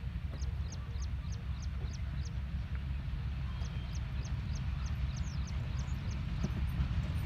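A bird repeating a short, high, falling chirp about four times a second, pausing briefly in the middle, over a low steady rumble.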